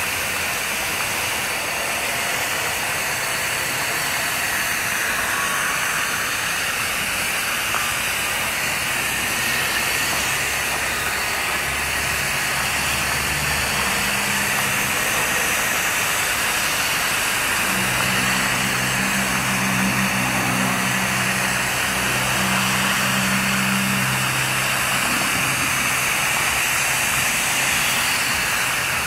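Steady hiss of a hose-end spray nozzle misting liquid fertilizer over trays of succulents. A low hum comes and goes through the middle and later part.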